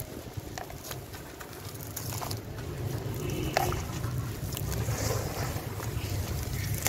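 Hands crumbling and squeezing sand-cement chunks in a plastic tub: gritty crunching with scattered small clicks of falling grit, over a low wind rumble on the microphone.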